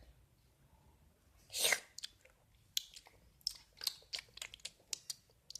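Close-up biting and chewing of something hard and crunchy: one loud crunching bite about a second and a half in, then a run of short, crisp crunching chews at an irregular few per second.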